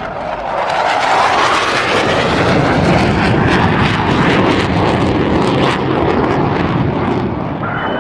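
Creature sound effect built from a jet-aircraft-like rushing noise. It swells about a second in, carries a rapid crackle through the middle, and has a falling whistle near the end.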